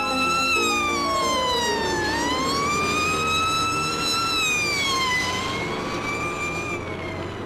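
Fire engine siren wailing, its pitch rising and falling slowly a few times before it fades out near the end, over background band music.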